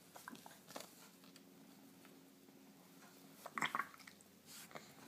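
Faint clicking and tapping as a toddler eats puff snacks at a plastic high-chair tray, over a low steady hum, with a louder brief rustle about three and a half seconds in.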